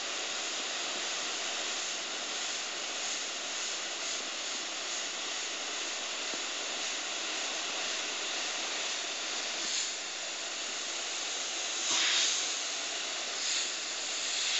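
Double-action airbrush spraying, a steady hiss of compressed air. Three brief louder puffs in the last few seconds, as short flare strokes are sprayed.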